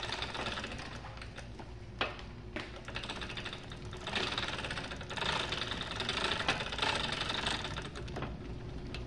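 Garage door opener running as the door rises: a steady mechanical rattle over a low hum, with a couple of sharp clicks about two seconds in.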